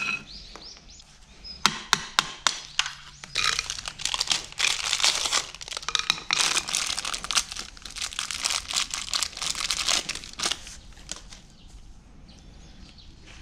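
A few sharp metal clicks of parts being handled, then several seconds of plastic packaging crinkling and tearing as a new PTO universal-joint spider is unwrapped.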